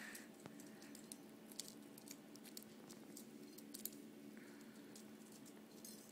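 Near silence with faint scattered ticks and soft rustles of Persian kittens' claws pawing and climbing at a woven wicker basket, over a low steady hum.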